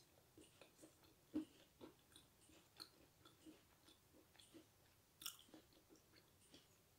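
Faint chewing of a soft brownie close to the microphone: irregular small mouth clicks and smacks, a few a second, with two louder ones, about a second and a half in and near five seconds in.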